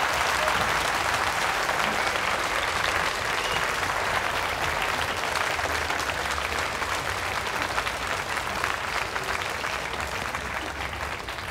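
Large seated audience applauding, many hands clapping at once, the applause slowly dying down toward the end.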